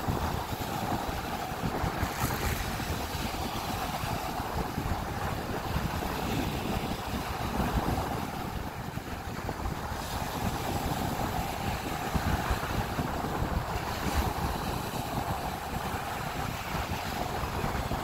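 Small sea waves breaking and washing up over a sandy, shell-strewn beach in a steady surf wash, with wind buffeting the microphone.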